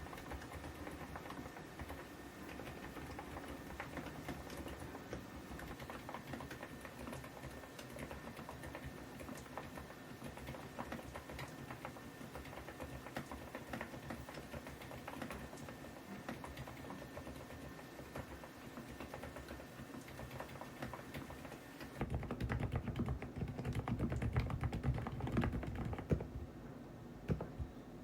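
Continuous fast typing on a Preflow F1 PRO MAX full-size mechanical keyboard, a dense stream of key clicks. About three-quarters of the way through, the keystrokes turn louder and deeper.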